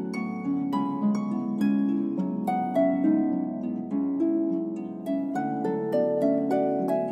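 Background harp music: a flowing run of plucked notes, several a second, each ringing out and fading under the next.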